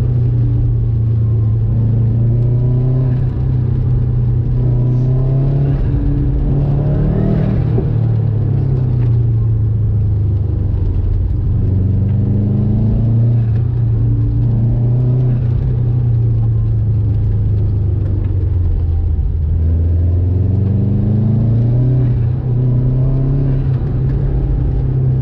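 Subaru GC8 Impreza's turbocharged flat-four engine driven hard, heard from inside the car. Its revs rise and fall repeatedly as it accelerates out of corners and slows for the next.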